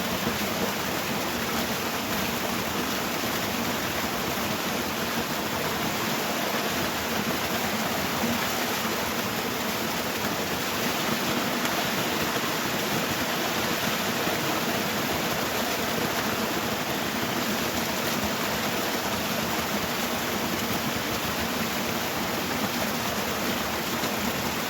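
Steady rush of water from a small waterfall, an even noise that does not change.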